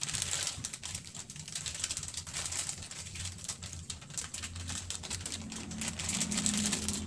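Plastic packet of breading mix crinkling and rustling as the coating is poured and shaken out onto a plate, a fine, dense crackle over a low steady hum.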